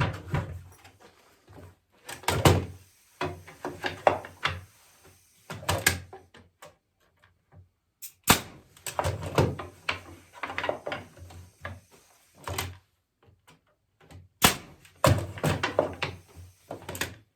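Irregular wooden knocks and thuds, some single and some in quick runs of several, as walnut chair parts are worked and handled at the bench.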